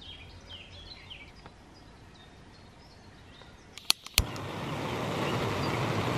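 Birds chirping quietly, then a few sharp clicks of the Soto Windmaster's piezo igniter about four seconds in. The gas burner lights and runs with a steady hiss of burning gas, turned to a low flame.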